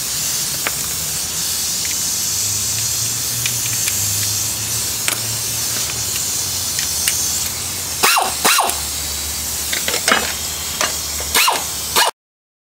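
Pneumatic air wrench running steadily with a loud hiss of exhaust air, backing out a brake caliper bracket bolt. Several sharp metal clicks come in the last few seconds, and the sound cuts off suddenly just before the end.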